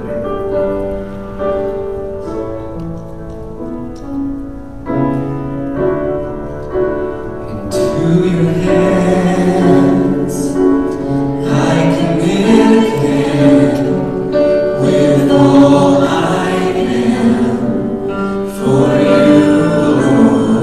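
Live worship band playing a slow gospel song. Sustained keyboard chords play alone at first; about eight seconds in, drums and cymbals enter and a group of voices starts singing.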